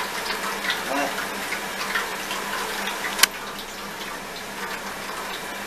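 Hands squishing fish pieces through wet batter in a bowl, with small wet squelches and ticks over a steady hiss; one sharp click a little over three seconds in.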